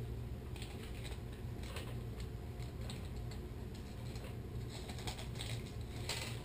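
Irregular small clicks and crinkles of a plastic package being opened by hand to get fingerboard wheels out, over a steady low hum.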